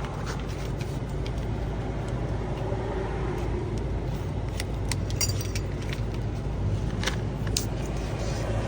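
Keys and a plastic key fob being handled and pried open with a small flat-head screwdriver, giving a few sharp clicks and snaps in the second half, over a steady low hum.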